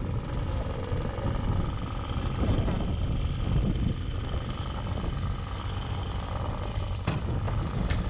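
Small 9.9-horsepower outboard motor running steadily.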